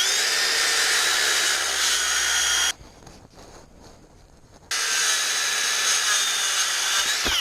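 Circular saw cutting wood in two stretches of nearly three seconds each, with a pause of about two seconds between them; at the end of the second cut the blade's whine falls in pitch as it winds down.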